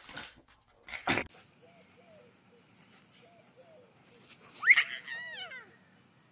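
Dog sounds: a single sharp bark-like burst about a second in, then faint short puppy whimpers repeating, and a loud high squeal near the end that shoots up and then slides down in pitch.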